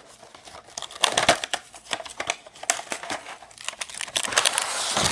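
Packaging crinkling and rustling as a small tool is unwrapped: a run of sharp crackles that grows denser and louder near the end.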